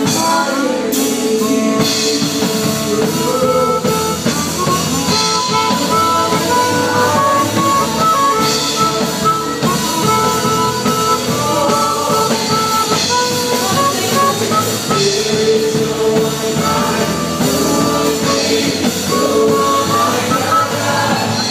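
Live band music: singers on microphones over guitar and drums, a song played through without a break.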